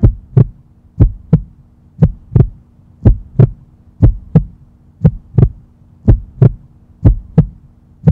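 Heartbeat sound effect: a steady lub-dub, pairs of deep thumps about once a second, over a faint steady hum.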